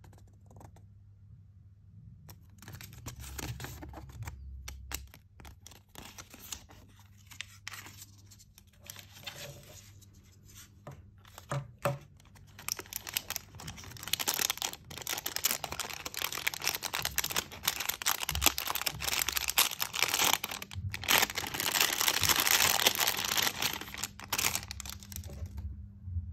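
Thin plastic wrapping and a paper leaflet rustling and crinkling in the hands as a small capsule toy figure is unwrapped, with a few sharp clicks. The crinkling grows louder and denser about halfway through.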